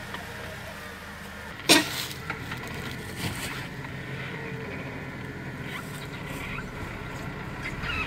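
Jeep Wrangler Rubicon engine running at low crawling revs as the Jeep backs down off the rocks, with one sharp loud knock a little under two seconds in and a few lighter clicks after it.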